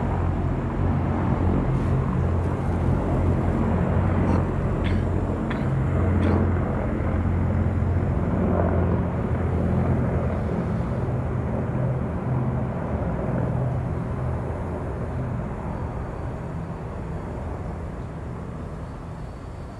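Low, steady rumble of aircraft engines from a formation of planes flying over, dying away slowly over the last several seconds.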